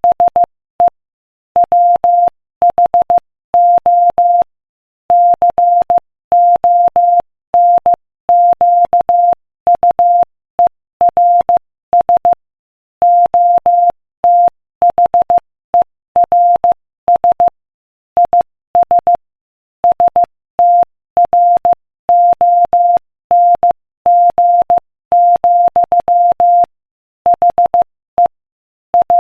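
Morse code at 15 words per minute: a single steady mid-pitched beep keyed on and off in short dots and longer dashes, with brief silences between letters and longer ones between words.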